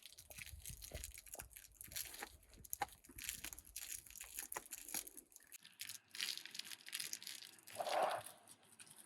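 A dog chewing and tearing apart a toy lure: irregular crackling, crunching and ripping. A brief louder sound comes about eight seconds in.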